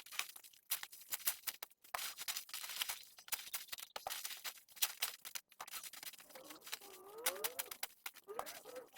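Dry leaves crackling and rustling as they are handled and torn, a busy run of sharp little clicks. Near the end a bird calls several times in short gliding notes.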